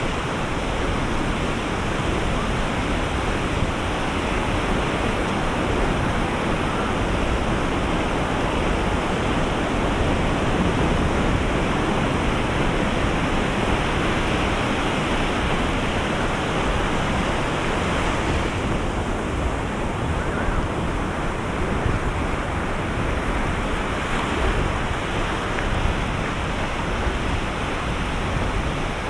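Ocean waves breaking on the shore, a steady rush of surf with no distinct single impacts; the hiss turns a little duller about two-thirds of the way through.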